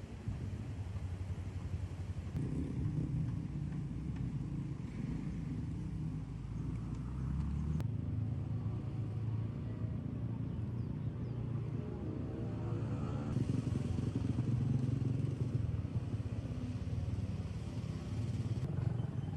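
Motor vehicle engines running on a road, with the pitch rising and falling a few times through the middle as an engine revs.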